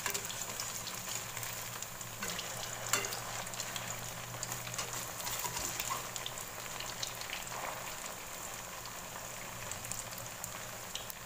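Tofu fritters deep-frying in hot oil in a non-stick wok, a steady crackling sizzle. A spatula stirs and turns them in the oil, with a sharp tap about three seconds in.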